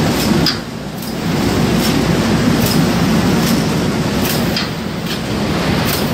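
Broccoli and cauliflower floretting machine running: a steady mechanical rumble from its conveyor and cutting mechanism, with light clacks repeating a little under a second apart. The level dips briefly about half a second in.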